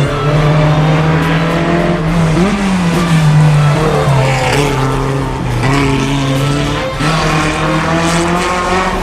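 A car engine running at a steady speed, with two short revs of the throttle, about two and a half and four seconds in.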